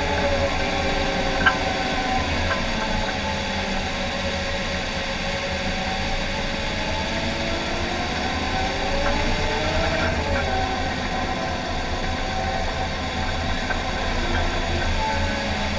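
John Deere 750K crawler dozer's diesel engine running steadily as the blade pushes a load of dirt, its pitch sagging and recovering about ten seconds in. A single sharp click about a second and a half in.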